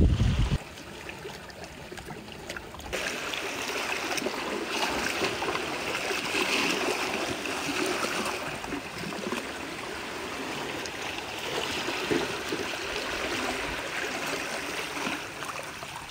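Water trickling and gurgling among shore rocks, a steady wash that gets louder about three seconds in. Wind buffets the microphone for the first half second.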